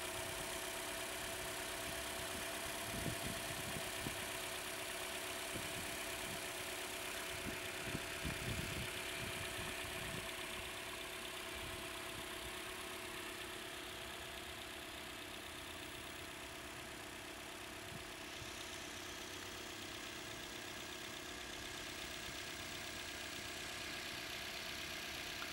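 2015 Toyota Corolla S's 1.8-litre four-cylinder engine idling steadily with the hood open, a steady hum running over the idle.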